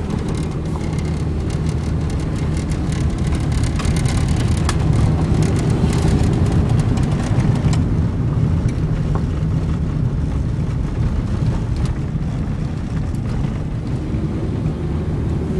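Cabin noise of a Saturn S-Series car driving on a gravel road: a steady low rumble of its 1.9-litre four-cylinder engine and the tyres, growing a little louder a few seconds in, with scattered small clicks throughout.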